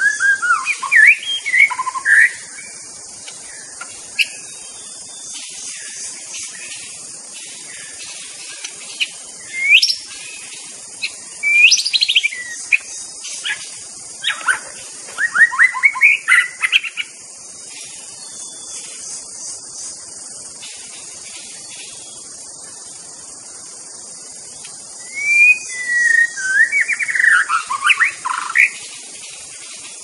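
White-rumped shama singing loud spells of varied whistled phrases, the notes sweeping up and down. The spells come at the start, through the middle and again near the end, with pauses between them, over a steady high background hiss.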